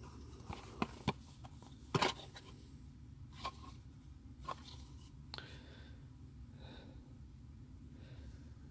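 Small cardboard box being handled and opened: a few light clicks and taps of card and flaps, the loudest a double snap about two seconds in, over a low steady hum.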